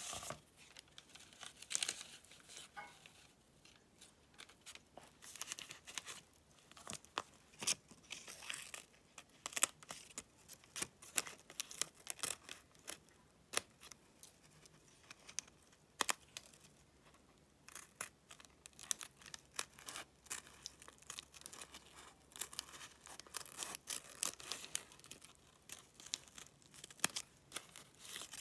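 Small pointed scissors snipping a fabric piece with a paper pattern attached, in short irregular crisp snips, with paper and fabric crinkling as the piece is handled.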